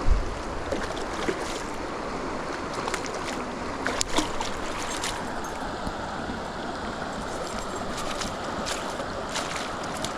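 Steady rush of fast-flowing river water, with a sharp thump right at the start and a few light clicks and taps.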